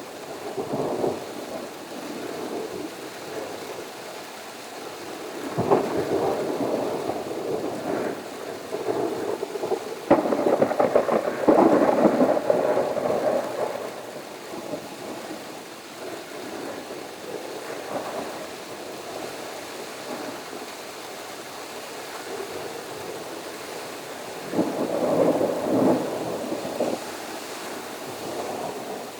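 Thunder rolling several times over steady rain. The loudest roll, about ten seconds in, starts with a sharp crack and rumbles for a few seconds; another roll comes near the end.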